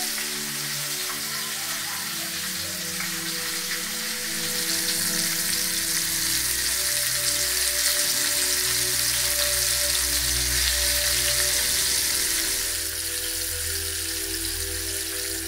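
Flour-coated chunks of barracuda deep-frying in a pan of hot oil: a steady, dense sizzle that grows louder a few seconds in and eases off again near the end.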